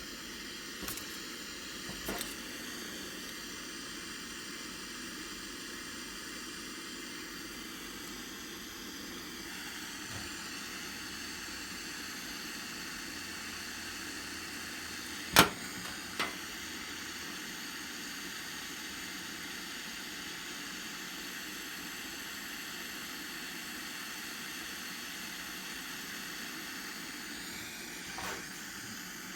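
Bernzomatic butane soldering torch burning with a steady hiss. One sharp click about halfway through, then a softer one just after it.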